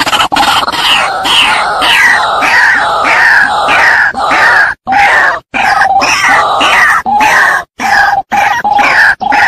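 White-breasted waterhen (ruak-ruak) giving its loud, harsh repeated 'kru-ak' call, about two notes a second with a falling pitch in each, broken by a few brief gaps. It is the female's call, played as a lure to draw other waterhens into a trap.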